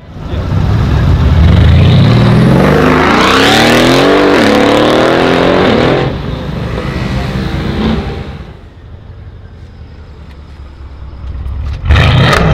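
Twin-turbo V8 of a tuned Mercedes-Benz CLS63 AMG, fitted with a catless downpipe and valved aftermarket exhaust, accelerating hard away: the engine note climbs steeply, dips at a gear change about four seconds in and climbs again, then drops after about six seconds and fades. Near the end a loud burst of revving close to the exhaust starts, with a rapid string of sharp cracks.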